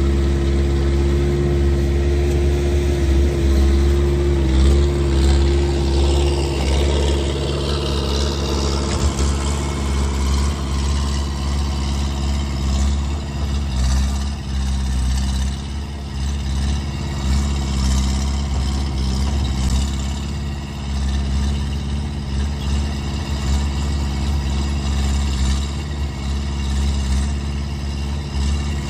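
Skid steer engine running loud with no exhaust fitted, its level rising and falling a little as the machine works. A steady higher tone rides over it for the first six seconds or so, then stops.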